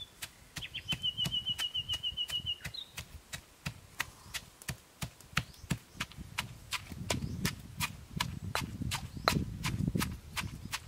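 Stone pestle pounding chillies and garlic in a stone mortar: a steady rhythm of sharp knocks, about three a second. The strikes turn heavier and duller in the last few seconds as the ingredients are crushed down.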